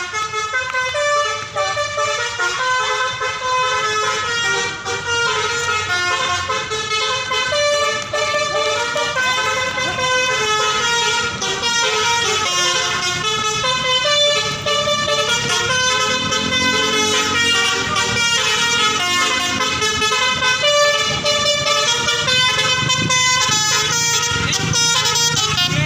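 Bus's Basuri telolet horn, a multi-tone musical horn, playing a tune: several horn tones sound together and change pitch in quick steps from note to note.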